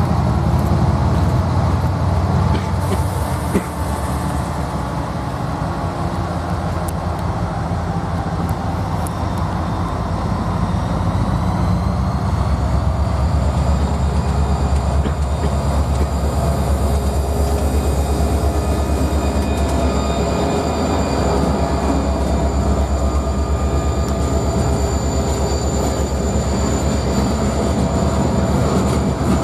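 Freight train rolling past: a steady heavy rumble of the cars on the rails. From about ten seconds in, a thin high wheel squeal rises and holds.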